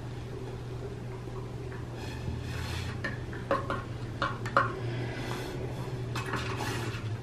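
Breath blown through a plastic drinking straw into soapy paint, bubbling it up on paper, with a few sharp clicks of plastic straws knocking against the paint bowls about three and a half to four and a half seconds in.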